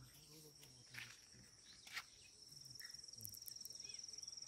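Faint, high, steady insect trill that turns into a fast even pulsing about halfway through, with a couple of faint clicks.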